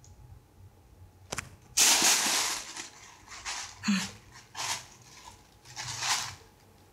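Thin plastic carrier bag crinkling and rustling in a run of bursts as a cat pushes its head into it and moves about inside, starting a little under two seconds in, the first burst the loudest.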